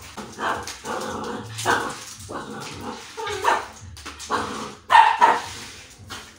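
Japanese Spitz barking repeatedly, about eight short barks, with the loudest about five seconds in.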